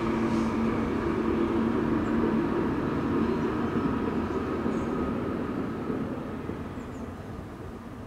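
Steady rumble of a passing vehicle with a low hum in the first couple of seconds, fading away over the last few seconds.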